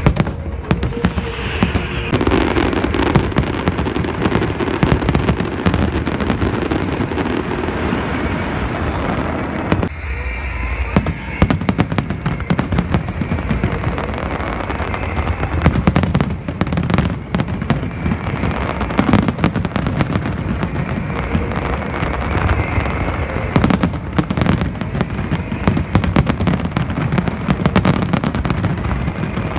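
Fireworks display going off continuously: a dense run of shell bursts and crackling, many bangs a second with no pause.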